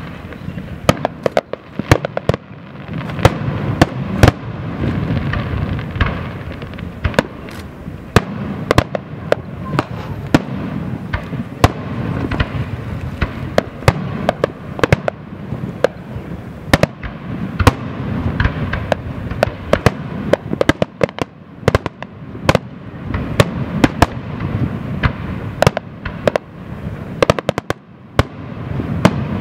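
Aerial fireworks display: a long run of shells bursting as sharp bangs, often several a second, over a continuous low rumble.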